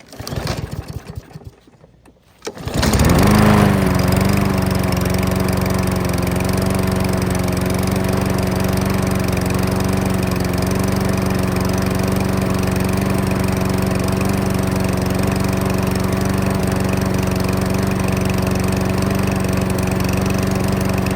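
Briggs & Stratton 5.5 hp engine on a Craftsman push mower being pull-started: a couple of seconds of cord-pull noise, then it catches about two and a half seconds in, flares up briefly and settles into a steady run.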